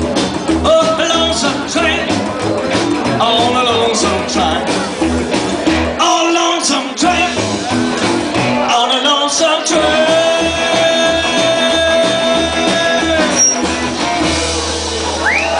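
Live rockabilly trio playing: a pulsing upright double bass line under acoustic and electric guitars, with a singer. A long note is held in the middle, and near the end the beat stops on a held chord.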